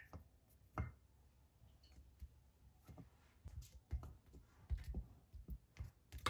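Irregular soft knocks and clicks in a small room, the loudest a little under a second in, with a quicker run of them in the middle.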